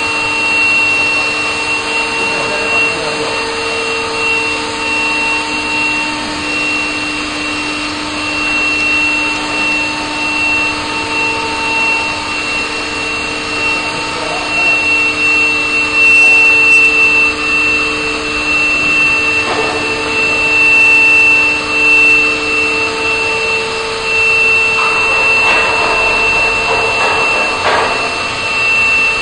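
Centrifugal combustion-air blower of a tundish preheater running with a steady whine: a loud, even rush of air carrying several steady tones, the highest one strongest, with a few brief knocks in the second half.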